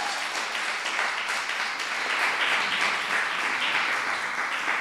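Audience applauding steadily at the end of a talk.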